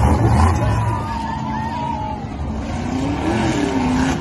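Monster truck engine running on a dirt track, its pitch rising and falling as the driver works the throttle, over a steady engine roar.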